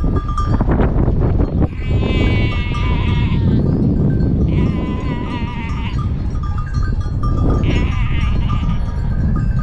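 Sheep bleating: three long, wavering bleats, about two seconds in, near the middle and near the end, over a steady low rumble.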